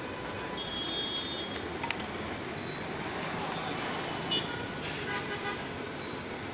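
Hot oil sizzling steadily as battered fritters deep-fry in a large wok, a metal spatula clinking against the pan a couple of times, over street traffic with a short horn toot near the start.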